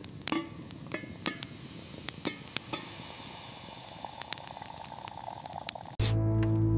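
Wood fire crackling, with sharp irregular pops and snaps over a low hiss. Music with sustained tones starts abruptly about six seconds in.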